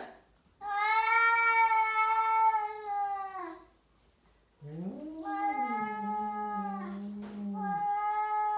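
Cats yowling at each other in a standoff before a fight: one long, steady yowl of about three seconds, then after a short pause a second long yowl with a lower voice running under it for about three seconds.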